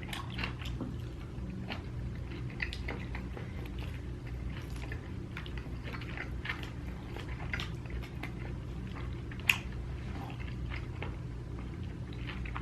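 Close-miked chewing and biting: irregular small wet clicks and smacks of a mouth eating, with one sharper click about nine and a half seconds in.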